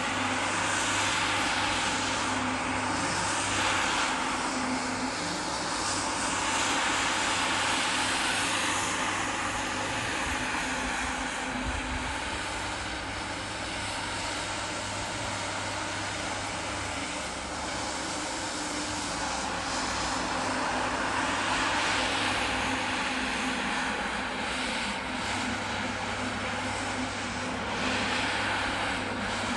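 Single-disc rotary floor scrubber running: its motor hums steadily while the spinning brush swishes through soapy foam on a wet rug. The scrubbing hiss swells and fades as the machine is swept back and forth.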